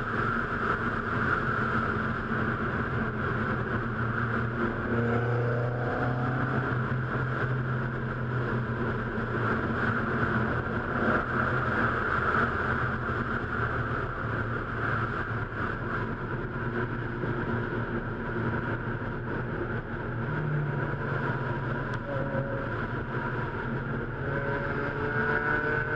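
Onboard sound of a car being driven on a race circuit: a steady engine note under constant road and wind noise, with the engine's pitch climbing as it accelerates near the end.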